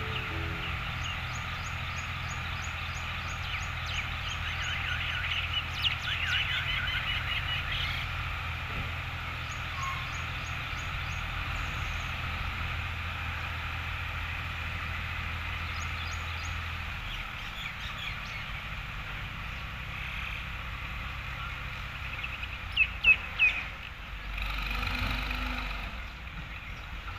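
Tractors running a little way off, a low steady engine hum, while tractor-trolleys tip their loads of soil; small birds chirp throughout. Near the end come three loud sharp knocks in quick succession, then a brief low rumble.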